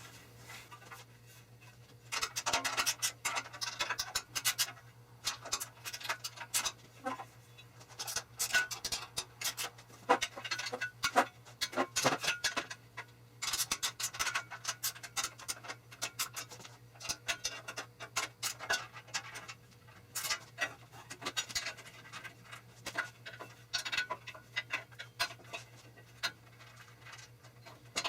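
Irregular clicks, taps and scraping of aluminum extrusion parts and their metal hardware being handled and worked loose, as a tight-sliding part and its nut are adjusted in the extrusion channel. A steady low hum runs underneath.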